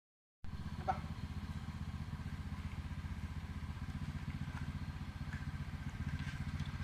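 Vehicle engine running steadily at an even low pulse, starting abruptly about half a second in.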